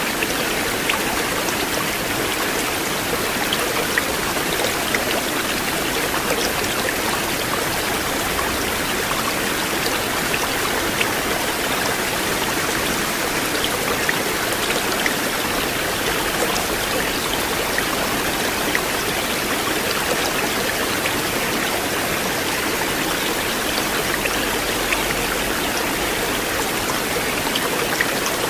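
River water flowing steadily, an even rush with small splashes ticking through it.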